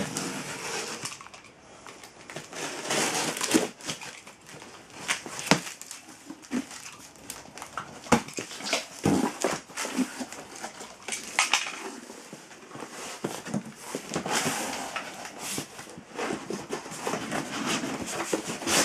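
A cardboard box being cut open and unpacked: a utility knife slicing through packing tape, then cardboard flaps and packing pieces rustling, scraping and knocking in irregular bursts.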